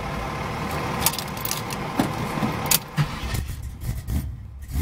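Chevrolet 454 big-block V8 running, a steady low rumble heard from inside the car, with several sharp clicks in the first three seconds.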